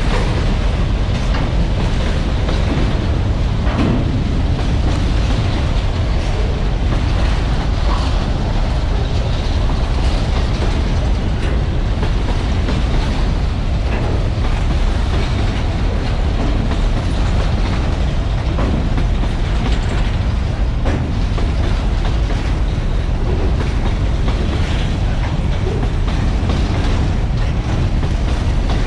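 Freight train wagons rolling past close by: a steady rumble of steel wheels on the rails, with occasional clacks over rail joints.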